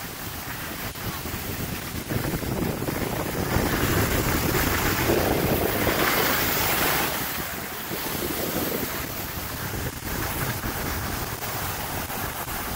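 Wind buffeting the microphone of a camera carried by a moving skier, mixed with the hiss of skis sliding over packed snow. It swells about two seconds in, is loudest in the middle, and eases off again.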